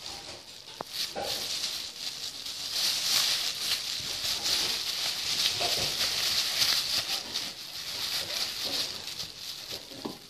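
Thin plastic bag crinkling and rustling continuously as a Yorkshire terrier puppy digs and noses about inside it, with a few brief sounds from the puppy itself.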